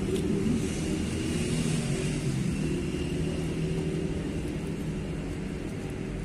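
A steady low engine rumble, swelling slightly about a second in and then slowly easing off.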